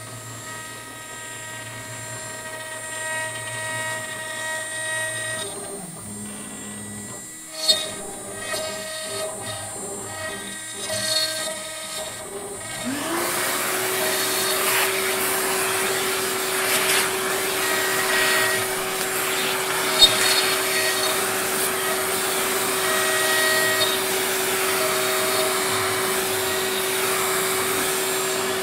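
A DIY CNC router's spindle runs with a steady whine as its bit cuts into a wooden board, and the whine shifts now and then as the machine moves, with one sharp click about eight seconds in. About halfway through, a shop vacuum switches on: its motor rises quickly to a steady pitch, and a loud rush of air covers the cutting.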